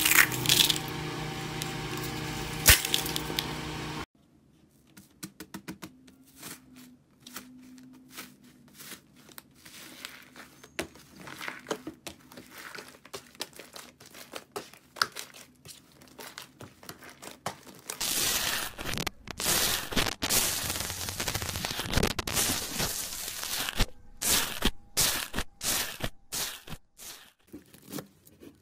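Slime being squeezed, pressed and poked by hand: a run of sticky clicks, pops and crackles, with a louder, denser crackling stretch about two-thirds of the way through. Music plays under the first few seconds.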